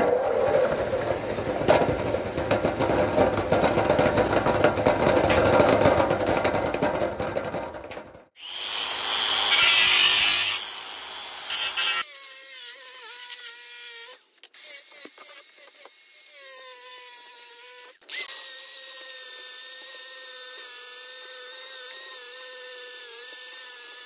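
A rough scraping noise for about the first eight seconds. Then a DeWalt angle grinder cuts the sprue from an aluminium bronze casting with a hissing cut-off disc, its motor whine rising and sagging with the load. Near the end it settles to a steady whine as a flap disc sands the casting's flat base.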